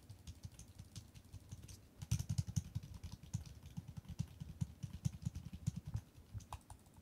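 Typing on a pretty quiet computer keyboard: scattered key strokes at first, then a fast, steady run of key clicks from about two seconds in until about six seconds in.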